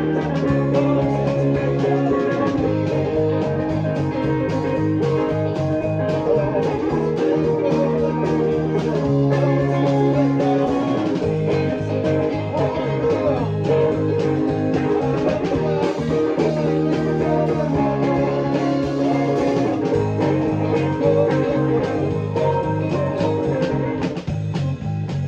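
Rock band playing a song: an electric bass plucked with the fingers, holding low notes that change every second or two, together with guitar and steady drum hits.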